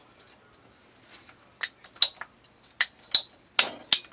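Sharp metallic clicks and clinks from plumbing hand tools and fittings being handled: about six short knocks in the last two and a half seconds, a couple with a brief high ring.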